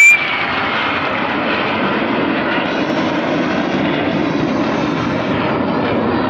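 Steady jet-engine noise from the Surya Kiran team's BAE Hawk jet trainers flying overhead during the aerobatic display, after a brief loud click at the very start.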